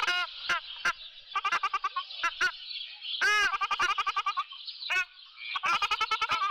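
Ruddy shelducks calling: goose-like honking calls that come in quick runs of several calls, with short pauses between the runs, over a steady high-pitched hiss.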